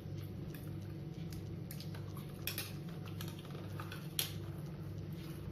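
Metal forks clinking and scraping on plates while pasta is eaten, a few sharp clinks, the loudest about four seconds in, over a steady low hum.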